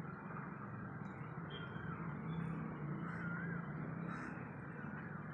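Steady background noise with a low hum, and a few faint bird chirps.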